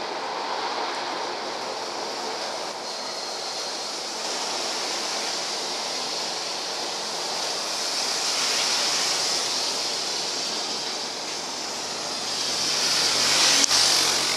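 Boeing 777 airliner on its landing roll on a wet runway: a steady rushing roar of jet engines mixed with the hiss of water spray thrown up by the wheels. It swells about halfway through and again near the end.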